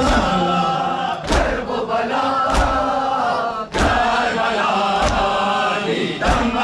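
Crowd of mourners chanting a noha together, with a loud collective chest-beat (matam) landing in time about every second and a quarter, six strikes in all.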